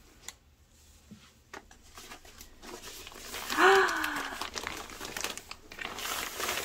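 Clear plastic wrapping crinkling, with cloth rustling, as a plastic-wrapped folded pajama set is pulled out of a cloth drawstring bag; it starts with a few light clicks and grows into dense crinkling after about two and a half seconds. A short pitched sound that falls in pitch comes a little past halfway and is the loudest moment.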